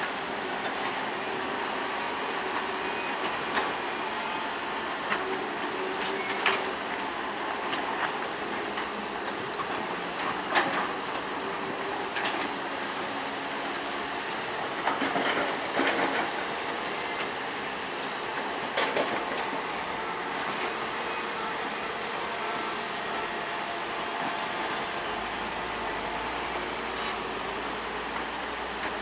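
Crawler bulldozer working: a steady mechanical din with irregular metallic clanks, the loudest cluster about halfway through, and a faint high squeal like steel tracks.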